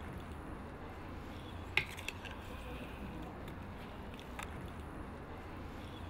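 Metal ladle clinking against the rim and sides of a terracotta clay pot while scooping chickpeas: a few sharp clinks about two seconds in and another just past four seconds, over a low steady hum.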